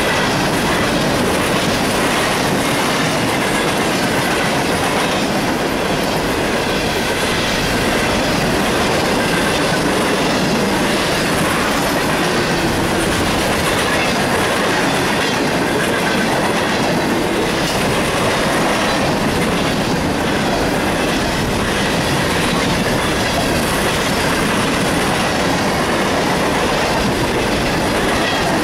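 Freight train's open-top hopper cars rolling steadily past, steel wheels clacking over the rail joints, with a faint high wheel squeal wavering in and out.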